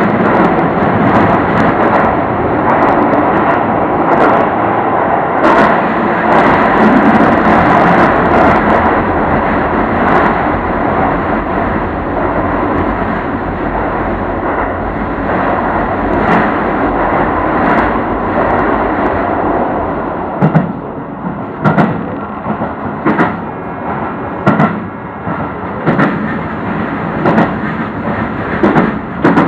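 Keio Line electric train running through a tunnel with a dense, steady rumble. About twenty seconds in, once it is out in the open, the sound drops and sharp wheel knocks come about every second and a half.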